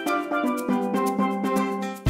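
Background music: a bright melody of quick, evenly paced notes with no bass, dipping in level near the end.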